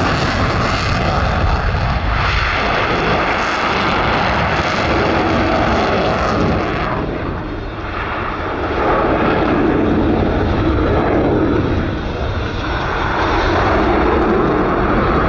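Jet noise from the F-22 Raptor's twin Pratt & Whitney F119 afterburning turbofans during a flying display. A loud, steady rush that eases briefly a little past halfway, then builds again, its top hiss duller after the dip.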